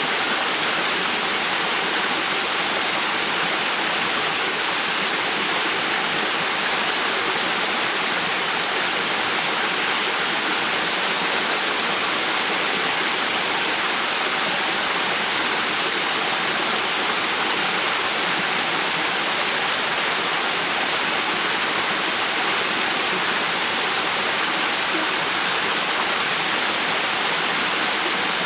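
River water flowing and rushing, a steady even hiss of moving water without breaks.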